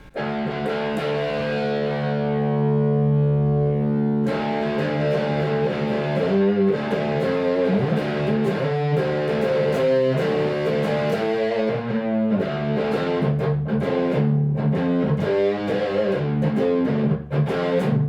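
Electric guitar played through a Diezel VH4-2 distortion pedal on channel 1 with the Deep control turned up: a distorted chord rings for about four seconds, then a driven riff of changing notes.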